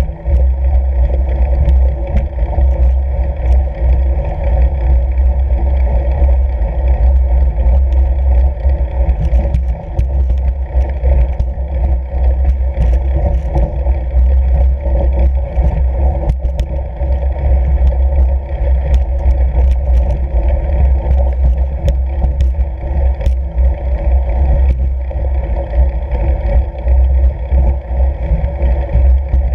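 Wind buffeting a moving fat bike's action-camera microphone as a steady, loud, deep rumble, with faint scattered ticks and crunches from riding over snow-covered lake ice.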